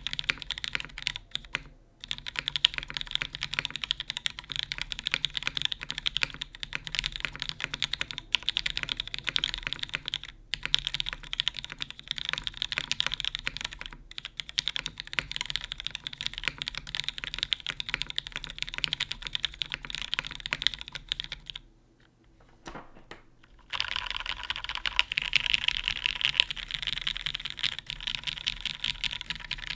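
Custom mechanical keyboard with vintage Cherry MX Black linear switches in an aluminium plate and GMK keycaps being typed on, a steady run of key clacks. After a short pause about three-quarters of the way in, the keys are spammed in rapid, denser bursts, including the larger stabilized modifier keys.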